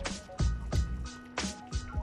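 Background music with a steady drum beat, deep thumps several times a second, under held keyboard notes.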